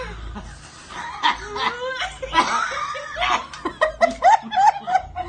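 Several people snickering and laughing, stifled behind their hands. The laughter grows into a quick run of short bursts in the second half.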